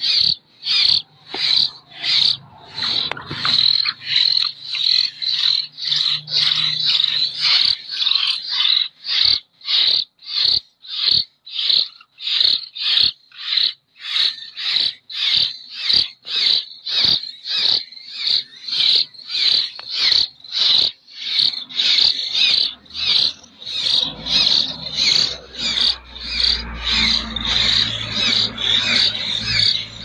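Common hill myna chicks giving harsh, rasping begging calls, about two a second in an even rhythm, as they beg to be hand-fed. Low rustling in the nest joins the calls in the last few seconds.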